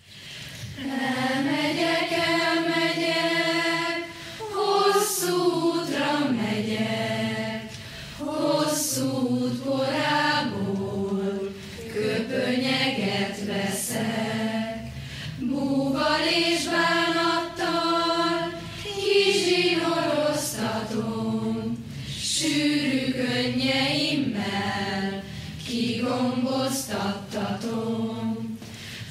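A choir singing a slow song in long held phrases, with brief pauses between the phrases.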